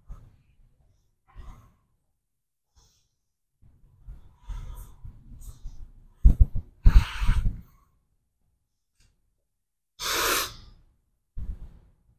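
A person breathing during a gym set, with a cluster of knocks and thuds about six to seven and a half seconds in and a single sharp burst of breath about ten seconds in.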